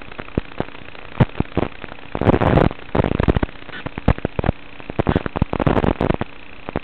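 Static from the analog FPV video link's audio: a steady hiss with scattered sharp pops, and dense crackling about two seconds in and again around five seconds in, as the analog signal breaks up.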